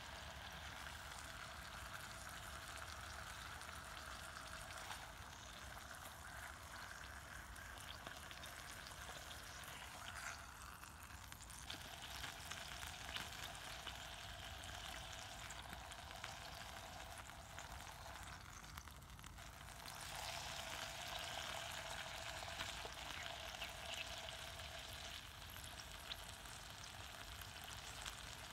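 Bacon sizzling and crackling steadily in a small camping frying pan, a little louder in the last third.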